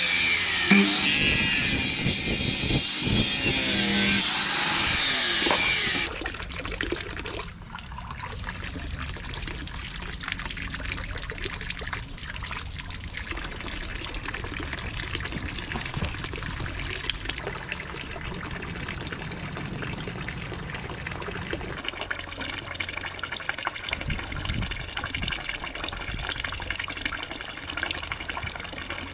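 A Metabo miter saw running and cutting through a bamboo pole, loud, for about six seconds before it stops abruptly. Then water pours steadily from a bamboo fountain spout and splashes into a stock tank pond.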